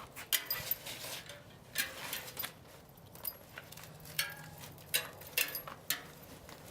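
A keychain tire lever being worked under a bicycle tire bead and slid around the rim to unseat the tire: irregular clicks and short scrapes, with the keys on the ring clinking.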